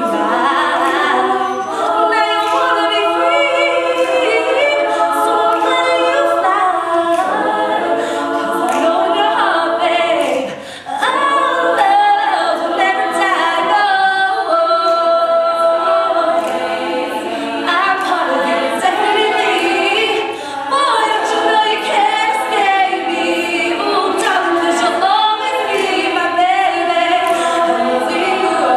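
All-female a cappella group singing unaccompanied: a lead soloist at the microphone over close backing harmonies from the rest of the group, with a brief drop in the voices about ten seconds in.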